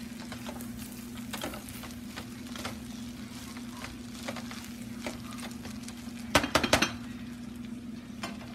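Rice noodles being stirred and tossed in a wok-style pan with a spatula: light scraping and scattered clicks, then a quick run of four or five louder knocks of the spatula against the pan about six seconds in. A steady low hum runs underneath.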